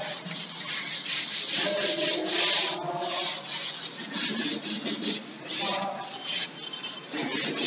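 Chalkboard being wiped clean with a duster: quick repeated rubbing strokes of the eraser across the board.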